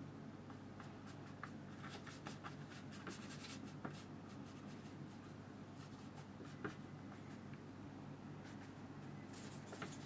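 Wide flat brush scratching and stroking across textured watercolour paper, faint and uneven, in short scrapes that come thicker a couple of seconds in and again near the end. A low steady hum runs underneath.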